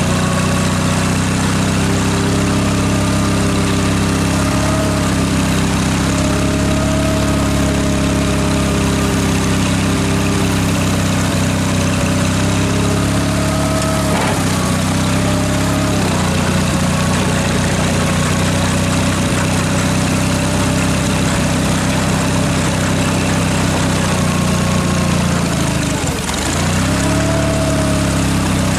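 Ford flathead V8 engine in a tractor idling steadily. Its speed sags briefly near the end and then recovers.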